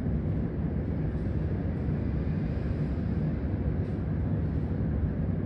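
Prague metro train coming slowly along the tunnel tracks toward the platform: a steady low rumble.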